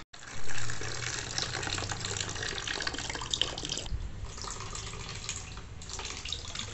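Dirty coolant and cleaning water draining in a steady stream from the Yamaha Fazer 600's cooling system into a plastic bucket, pouring and splashing like a running tap. A louder burst about half a second in fades quickly.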